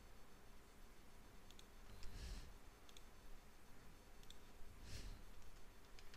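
Faint computer mouse clicks, twice coming as quick pairs of sharp ticks, with a couple of softer brief noises between them.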